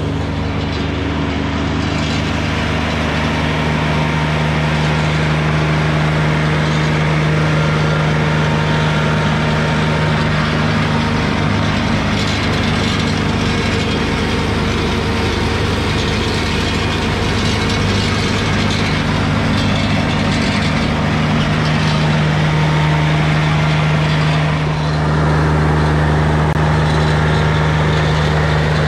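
IRUS Deltrak 2.5 tracked slope mower running steadily, its engine and front mulcher working through grass, getting slightly louder about 25 seconds in.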